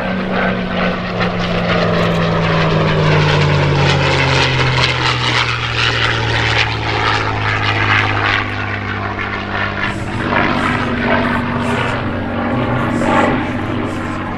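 North American P-51 Mustang's V-12 piston engine and propeller running hard in a low fly-by. The engine note drops in pitch over the first several seconds as the fighter passes, then stays loud and steady as it banks away.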